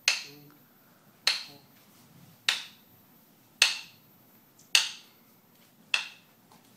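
Sharp clicks keeping a slow, even beat for the dancers' walk, a little under one a second, six in all, each ringing briefly in the studio.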